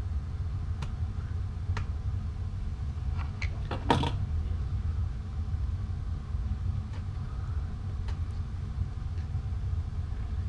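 A razor blade slicing and scraping the thread wrap and epoxy at a fishing rod guide: a few faint sharp clicks, with a short cluster of scrapes and clicks about four seconds in, over a steady low rumble.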